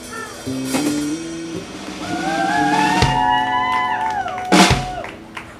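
Live band music: guitar, bass and drum kit playing, with a long held note rising and falling in the middle and a cymbal crash near the end.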